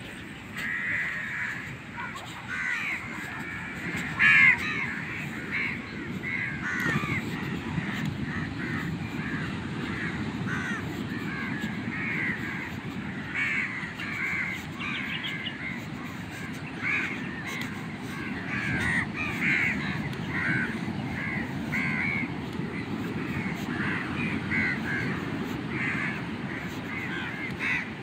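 Many birds calling over and over, short overlapping calls, above a steady low rumble. A louder burst stands out about four seconds in.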